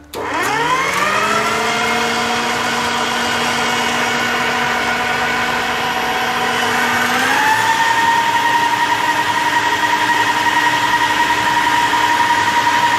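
Electric stand mixer with a wire whisk starting up and beating eggs: its motor whine rises as it spins up, holds steady, then shifts up to a higher speed about seven seconds in.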